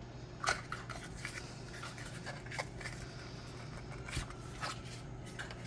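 Fingers handling a small cardboard box as it is opened to take out a nail polish bottle: light scraping with a few soft ticks scattered through.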